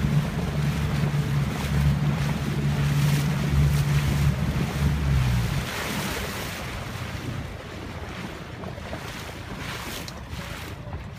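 Wind buffeting the microphone over water lapping around a boat on open water, with a low steady hum that stops about six seconds in, after which it is quieter.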